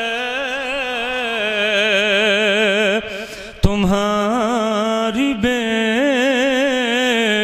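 A man singing long, wavering held notes in a melismatic melody from a line of an Urdu devotional poem, amplified over a microphone. The voice breaks off briefly about three seconds in, then takes up the held, wavering line again.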